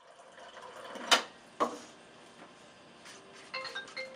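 Water dispenser running into a paper cup, a soft hiss that ends with two sharp clicks. Near the end, a cell phone ringtone starts, a quick run of repeated beeping notes.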